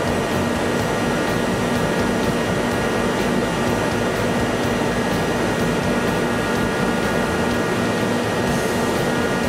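Steady machine hum from a CNC turning lathe and its running equipment, a constant noise with several held tones that does not change.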